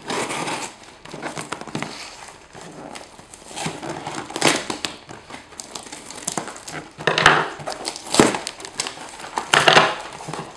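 A cardboard shipping box being opened: its packing tape cut and torn and the cardboard flaps crackling as they are pulled open, in several noisy bursts.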